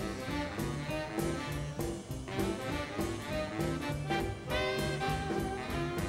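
Background music: an upbeat swing-style jazz tune with a steady beat.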